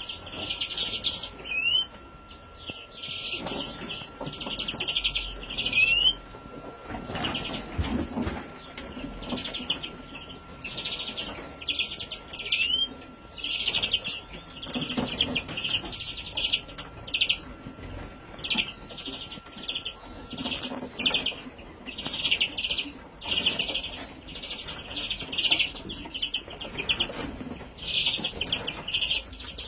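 Young greenfinches calling in repeated bursts of rapid, high chirps, with an occasional short rising note. A faint steady tone stops about two-thirds of the way through.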